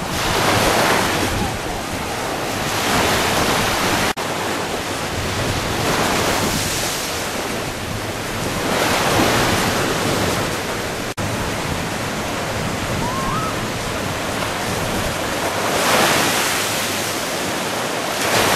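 Small waves breaking and washing up a sandy beach over a steady hiss of surf, each wash swelling and fading every few seconds.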